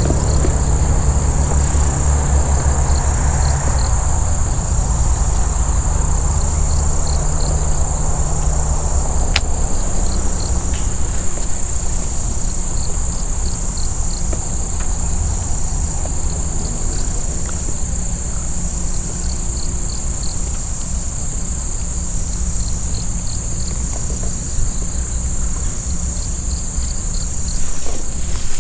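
Crickets chirping in a steady, unbroken high trill, over a constant low rumble.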